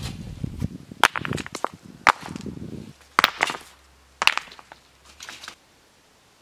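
Wood being chopped: four sharp strikes about a second apart, with a crunching rumble between the first few, stopping suddenly.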